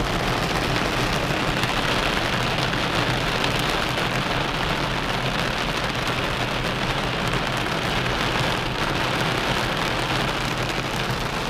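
Heavy rain hitting a car's roof and windshield, heard from inside the cabin as a steady, dense patter of drops.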